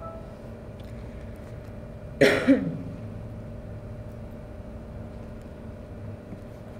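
A person clears their throat with two quick coughs about two seconds in, over a steady low hum.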